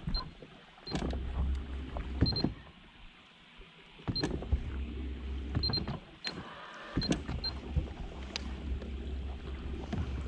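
Bow-mounted electric trolling motor running in spurts, a low hum that starts and stops three times, with sharp knocks and clunks against the boat and faint short high pips.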